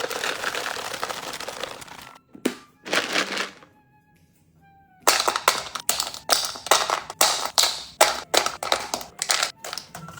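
Kitchen handling sounds: a couple of seconds of rustling noise and two short scrapes, then from about halfway a quick run of sharp knocks or clacks, about two or three a second.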